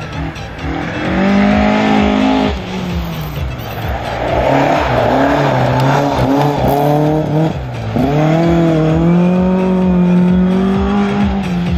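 Ford Escort MK2 rally car driven flat out on a dirt stage, its engine revving up and down with two sharp drops in revs, about two and a half and eight seconds in. A rush of tyre and gravel noise fills the middle as the car slides.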